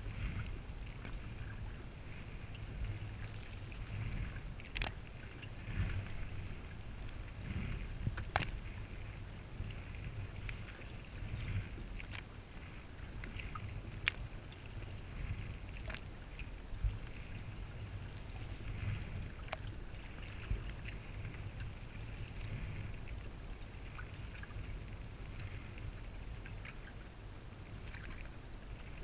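Double-bladed kayak paddle stroking through the water: repeated splashing and dripping from the blades, with a few sharp clicks, over a steady low rumble.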